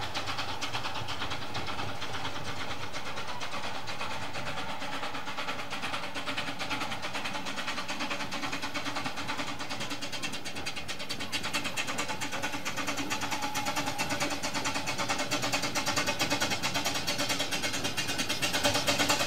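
Miniature 12¼-inch gauge steam locomotive working a passenger train, its exhaust beating rapidly and evenly, growing louder over the second half as it approaches.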